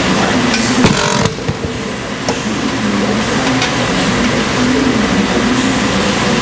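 A steady loud gym din, with a short metallic clatter about a second in as a loaded barbell is set down on a preacher curl bench.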